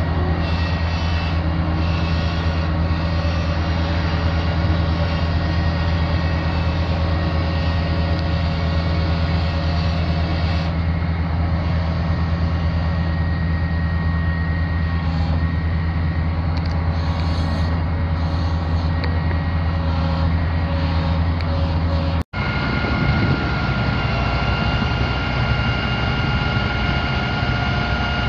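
International DT466 inline-six diesel engine running steadily with a low, even drone. After a cut about 22 seconds in, it keeps running with a steady higher-pitched whine added on top.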